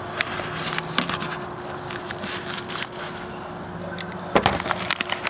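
A mailing package being handled and opened: scattered crinkles and clicks, with a louder clatter of knocks about four seconds in, over a steady faint hum.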